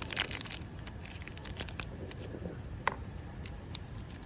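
Rustling and tearing of packaging by hand, loudest just at the start, with scattered light clicks and knocks.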